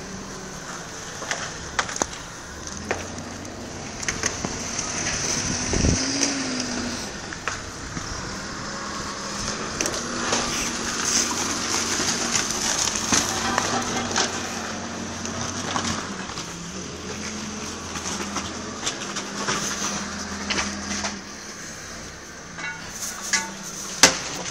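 Footsteps crunching over gravel and tornado debris, with scattered clicks and knocks, the sharpest near the end, over a steady low hum.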